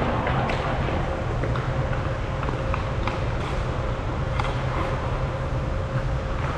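Ice hockey rink ambience: a steady low rumble with a faint steady hum, and scattered faint clacks of sticks and puck on the ice.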